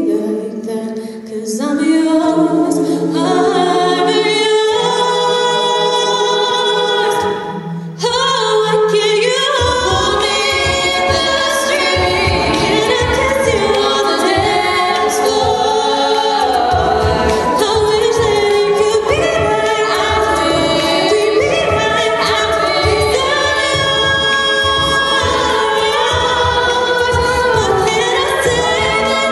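All-female a cappella group singing with microphones: a solo voice over backing harmonies, then about nine seconds in a vocal-percussion beat and low bass line come in under the full group.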